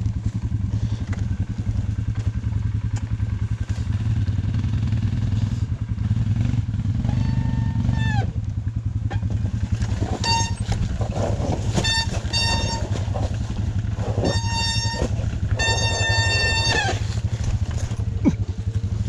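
Dirt bike engine running steadily with a low, even pulse. Several short, flat high-pitched squeals come one after another through the second half, the longest near the end.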